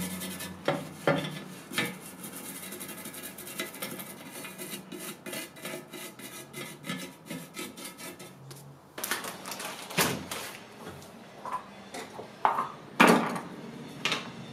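Toothbrush bristles scrubbing dark finish into the carved relief of a wooden mirror frame: a fast, scratchy ticking. From about nine seconds in come several sharp knocks and clacks as a small jar and its lid are handled and set down on a wooden workbench.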